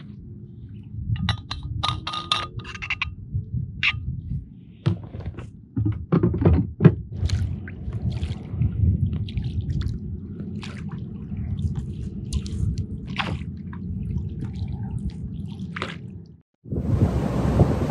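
Water lapping against a kayak's hull, with a fishing reel clicking briefly a second or two in, then kayak paddle strokes splashing at irregular intervals. Near the end the sound cuts out for a moment and a steady rush of rain takes over.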